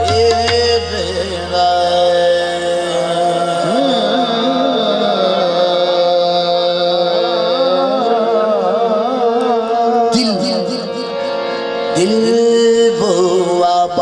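Qawwali music: harmoniums holding steady drone notes while a lead voice sings a long wordless melodic passage with wavering, gliding pitch over them, with a few sharp percussion strokes about ten seconds in and near the end.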